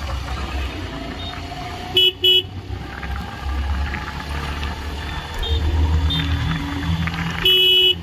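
Motorcycle riding along a street, its engine and road noise a steady low rumble, with two short horn beeps about two seconds in and a longer horn blast near the end.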